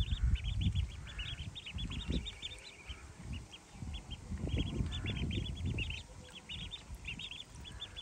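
Several ducklings peeping together as they swim, a busy run of short high-pitched peeps that thins out briefly partway through.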